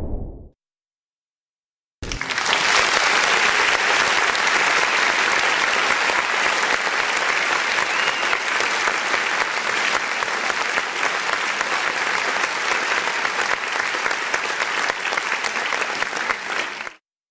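Crowd applause: many hands clapping in a dense, steady patter for about fifteen seconds. It starts after a short silence and cuts off abruptly near the end.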